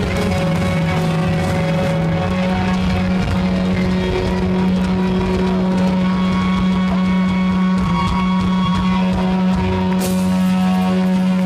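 Live instrumental rock band with electric guitar, bass and drums, the band holding a long sustained low note with a guitar line over it. A sudden bright crash comes near the end.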